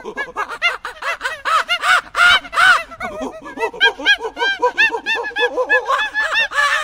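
Several monkeys chattering: a rapid, overlapping run of short, high calls that rise and fall in pitch, several a second.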